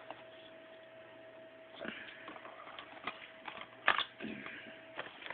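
Small cardboard boxes of diabetic test strips being handled: scattered light clicks and rustles starting about two seconds in, with a sharper click near four seconds, over a faint steady hum.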